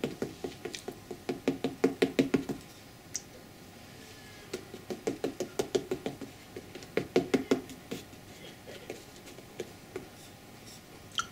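Bristle paintbrush dabbing tea stain onto a stretched canvas: quick runs of light taps, several a second, in three bursts, the first and longest lasting about two and a half seconds.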